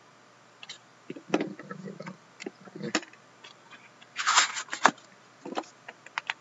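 Trading cards and their packaging being handled: scattered clicks and taps, with a short rustling scrape a little after four seconds in.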